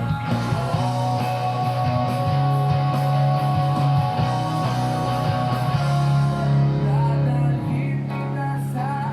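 Background music: a rock song with guitar and a steady bass line, with some singing.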